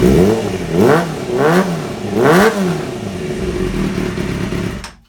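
Kawasaki ZXR race bike's inline-four engine, warmed up and running with no chain fitted, blipped four times in quick succession, settling back to idle and then switched off, cutting out suddenly near the end.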